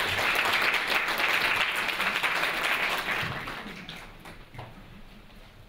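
Audience applauding, a dense patter of many hands that holds for about three seconds and then dies away.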